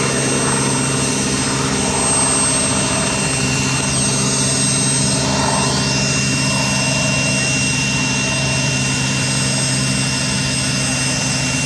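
UH-60 Black Hawk's twin turboshaft engines and rotors running on the ground before takeoff: a loud, steady rotor drone with a steady high turbine whine over it.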